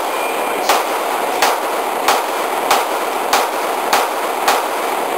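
A .40-calibre semi-automatic pistol fired in a steady string of about eight shots, roughly three every two seconds, in an indoor range, over a steady background hiss.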